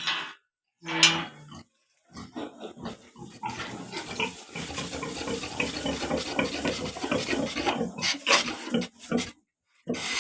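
Pigs calling: a couple of short loud cries, then a dense stretch of overlapping pig noise from about two seconds in until about nine seconds, and another short loud cry near the end.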